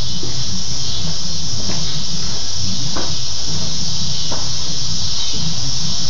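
Hoover Concept 1 Power Drive upright vacuum cleaner running steadily while standing in place: a steady hiss of rushing air over a low motor hum, with three faint ticks.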